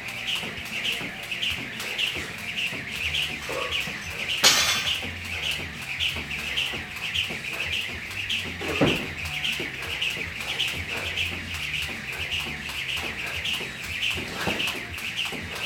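Jump rope whirring and whipping around in a steady rhythm, about two strokes a second, as someone skips without a break. A short, loud hiss stands out about four and a half seconds in.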